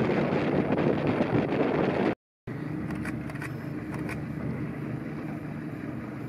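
Boat engine running under way, with wind noise on the microphone. After an abrupt cut about two seconds in, the engine runs quieter as a steady low hum.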